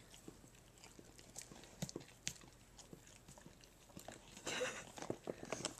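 Black Labrador licking and smacking its mouth on peanut butter: faint, scattered wet clicks and smacks, with a brief louder burst of noise about four and a half seconds in.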